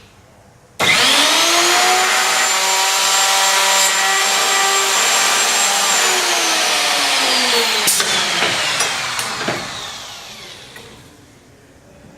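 A hinge-mortising router motor on a door-shop routing station starts about a second in and runs up quickly to a steady whine. After about five seconds it is switched off and winds down, falling in pitch and fading. A couple of sharp knocks come during the wind-down.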